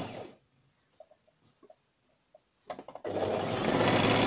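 Electric domestic sewing machine stitching a seam. It stops about half a second in, leaving a quiet pause with a few faint clicks, then starts up again just before three seconds in and runs steadily.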